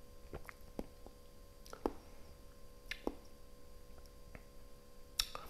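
Faint wet mouth clicks and lip smacks, about half a dozen scattered through, from a person holding and working a sip of wine in the mouth while tasting.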